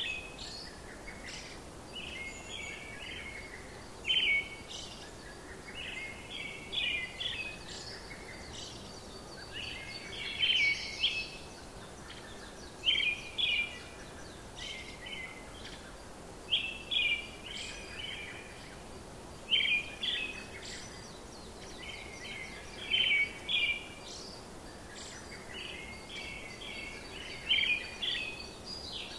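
Small birds chirping in short, bright phrases, one every two or three seconds, over a steady faint hiss.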